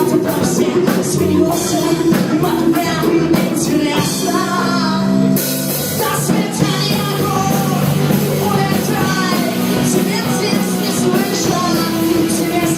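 Rock band playing live: drums and guitars under a sung vocal line, with the cymbals dropping out for about a second and a half around four seconds in.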